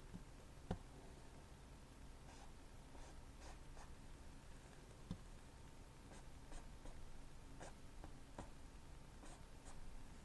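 Faint scratchy strokes of a paintbrush working oil paint on canvas, coming and going irregularly, with a couple of light taps about a second in and about five seconds in.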